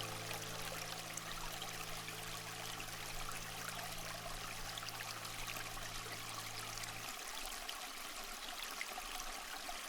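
Ambient relaxation soundscape: a steady, fairly quiet hiss like running water under a low held drone. The drone stops about seven seconds in.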